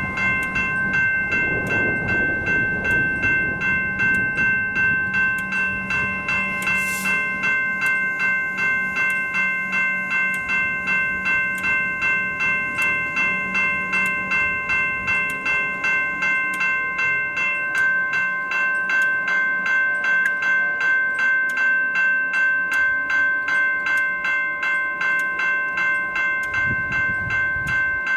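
Level crossing warning bell ringing steadily, about two strikes a second. A low rumble of a passing vehicle rises under it near the start and again near the end.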